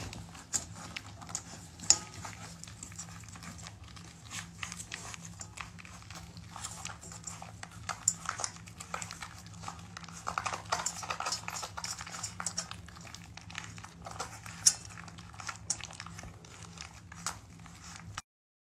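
Puppies eating from a stainless steel bowl: a busy run of small wet chewing and lapping noises, with light clicks and clinks of muzzles and food against the metal bowl, over a steady low hum. The sound cuts off abruptly near the end.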